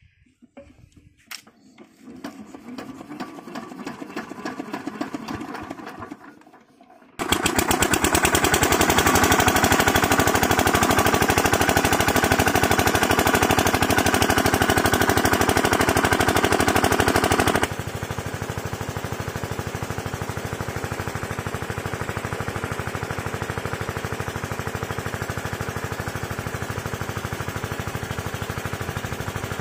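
Topland 5 HP single-cylinder engine on a water pump set being hand-cranked, its turning-over pulses building for a few seconds. About seven seconds in it catches and runs with a fast, even knock, quieter from about eighteen seconds in, while the pump pushes water.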